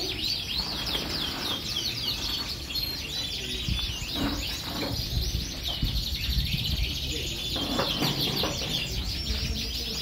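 Many caged canaries singing at once, a dense, continuous chorus of overlapping high trills and chirps.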